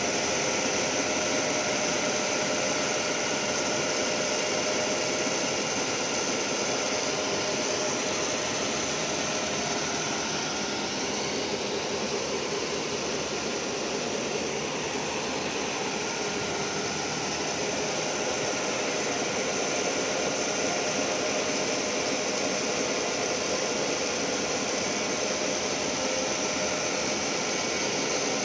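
Abrasive wheel of a roll grinding machine grinding the flutes of a corrugated steel roll under coolant: a steady hiss with a high whine over it.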